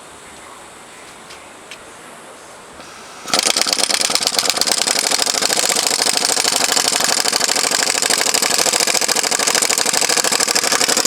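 Impact wrench hammering steadily on a stuck engine bolt, starting about three seconds in after a quiet start. The bolt comes out of the aluminium pulling its threads with it.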